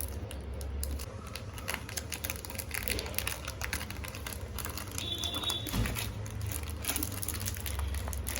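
Small clicks and light crinkling as a cube's packaging box is handled and opened, over a steady low hum, with a short high squeak about five seconds in.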